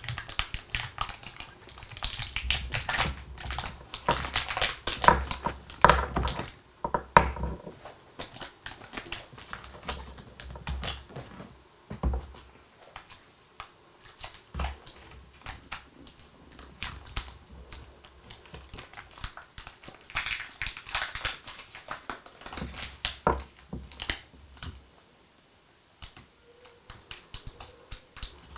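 Crinkling and rustling of Ritter Sport mini chocolate bar wrappers as they are handled and peeled open, with small bars tapping down on a table. Irregular clicks come in clusters, loudest a few seconds in and again about two-thirds of the way through.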